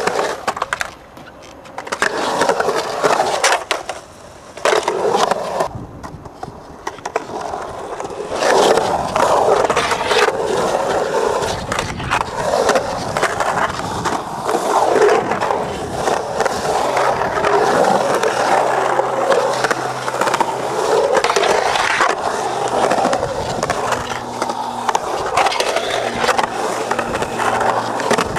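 Skateboard wheels rolling and carving around a concrete bowl: a continuous rolling rumble that swells and fades as the rider moves through the transitions, with a few sharp clacks of the board.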